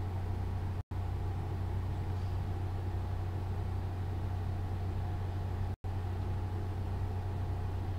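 A steady low hum with no change in pitch, broken twice by a momentary dropout to silence, about a second in and again near six seconds.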